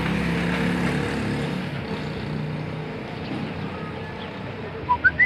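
A motor vehicle's engine passing by and slowly fading away, with a few quick bird chirps near the end.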